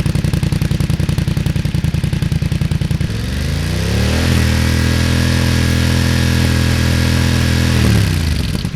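BMW F900R's parallel-twin engine idling with a steady pulse. About three seconds in, it is revved up, held at a steady higher rpm for several seconds, and then drops back to idle near the end.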